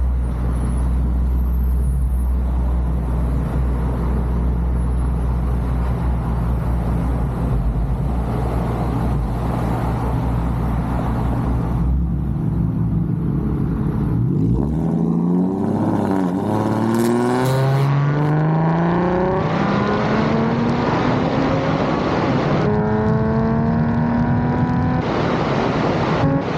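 Lexus IS 250's V6 engine running at a steady low drone, then from about halfway accelerating, its pitch climbing repeatedly with a short drop at each upshift.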